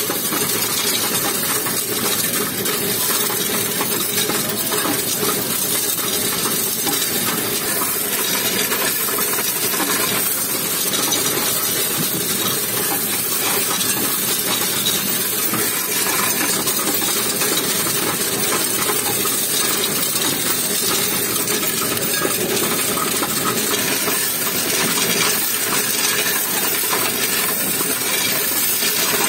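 Coin-counting kiosk running, a steady dense rattle and clinking of loose coins feeding through its counter.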